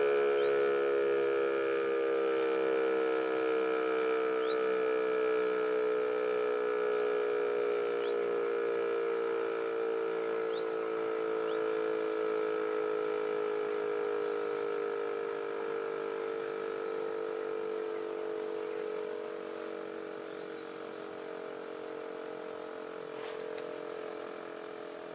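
Civil-defence siren sounding one sustained tone that slowly sinks in pitch and fades in volume.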